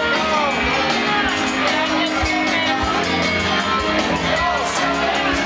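Loud music with singing, over the chatter and shouts of a packed bar crowd.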